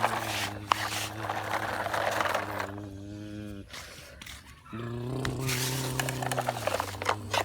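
A steady, droning hum at one unchanging pitch over a rough, hissy scraping noise. The hum cuts out for about a second in the middle, then returns.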